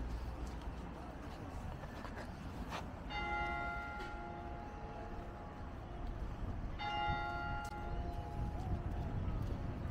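A bell struck twice, nearly four seconds apart, each stroke ringing out and fading over about a second, over low city rumble.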